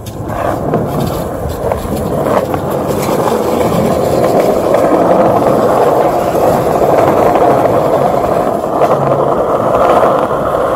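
Small hard wheels rolling over a rough concrete ramp, a steady gritty rolling noise that builds over the first few seconds as speed picks up and then holds.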